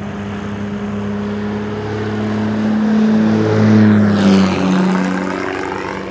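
Airplane flying past: its engine grows louder, peaks about four seconds in, and its pitch drops as it goes by, with a rushing sweep at the moment of passing.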